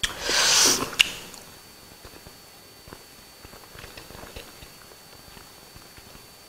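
A person eating a hot boiled egg and biryani by hand: a short, loud rush of breath at the start, a sharp click about a second in, then quiet chewing with soft wet clicks.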